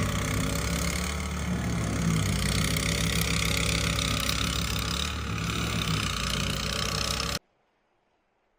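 A vehicle engine running steadily under a loud, even hiss; the sound cuts off abruptly about seven seconds in.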